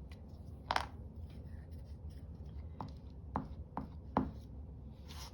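Paper and craft materials being handled on a desk: a few short, light taps and knocks at uneven intervals, with faint rustling between them.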